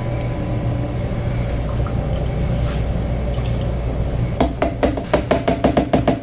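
Breast milk poured from a Freemie collection cup into a bottle. Over a steady low hum, the pour breaks into a quick run of gurgling pulses, about seven a second, in the last two seconds.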